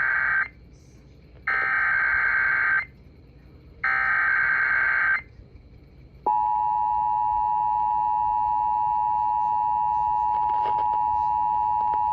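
Emergency Alert System broadcast tones over FM radio. The SAME header comes first as three bursts of screeching data tones: the end of one and then two more, each a little over a second long. About six seconds in, the steady two-tone EAS attention signal (853 and 960 Hz) starts and holds.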